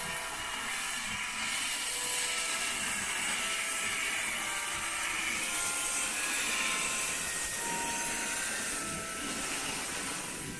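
Steady hiss of steam venting from a standing LMS Stanier Black Five 4-6-0 steam locomotive, No. 45407.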